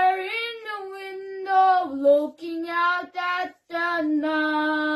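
Child singing the closing line of a slow children's song, with no instruments, the last note held long from about four seconds in.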